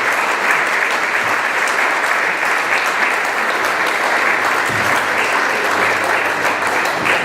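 Audience applauding and cheering, a steady sustained round of clapping.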